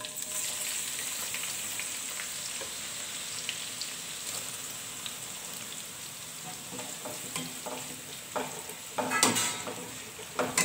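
Sliced onions sizzling in hot sunflower oil in a non-stick kadai, a frying hiss that starts at once and slowly eases. In the last few seconds a slotted spoon stirs them, scraping and knocking against the pan.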